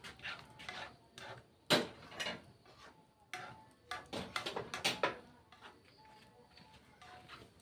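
Irregular knocks and clatter of kitchen utensils and cookware being handled, with light rustling in between; the loudest knock comes nearly two seconds in.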